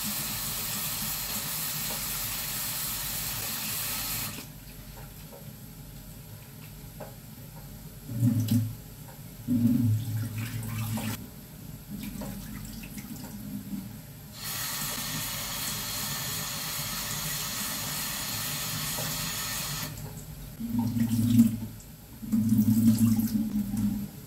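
Kitchen tap running into a stainless steel sink in two stretches, the first about four seconds long and the second about five and a half. Mushrooms are being rinsed by hand in a steel bowl under it. In between and near the end, louder low sloshing comes from water being swirled in the bowl and tipped out.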